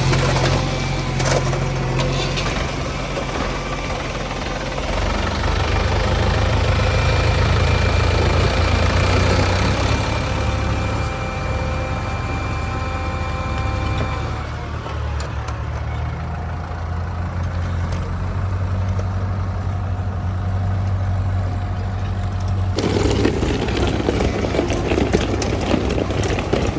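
Diesel engine of a backhoe loader or tractor running steadily, its note shifting as the machine works. About twenty-three seconds in the sound turns abruptly harsher, with added clatter and rattling.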